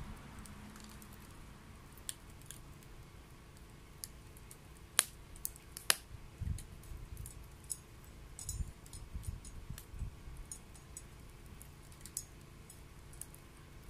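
Wet wood burning in a homemade secondary-combustion wood stove, crackling with scattered sharp pops, the loudest two about five and six seconds in. A few soft low thumps come in the middle.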